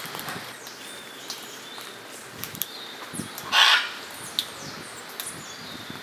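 Scarlet macaw giving one loud, harsh squawk about three and a half seconds in. A few sharp clicks and faint chirps sound around it over a steady background hiss.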